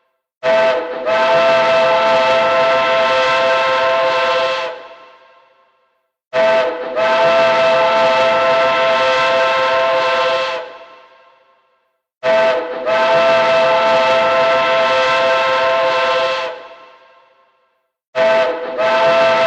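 Train hooter blowing repeatedly: a short toot, a brief break, then a long steady blast of about four seconds that dies away, about every six seconds. It sounds three times, and a fourth blast starts near the end.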